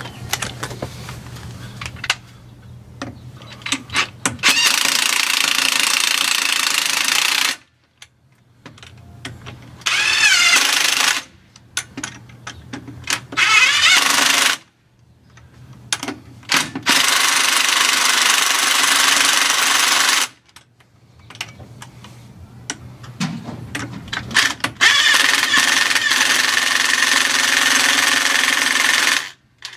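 Impact wrench running lug nuts onto a truck wheel in about five bursts of one to three seconds each, with small clinks of nuts and tools between.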